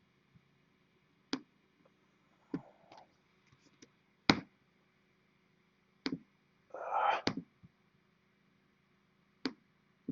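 Isolated sharp clicks at a computer, about six spread unevenly over ten seconds, with a brief soft noise about seven seconds in.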